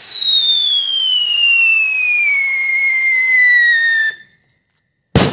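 A DIY scream whistle bomb firecracker screeches as it burns, one long whistle falling steadily in pitch. The whistle cuts off sharply about four seconds in, and after a moment's gap the charge goes off with a single sharp bang near the end.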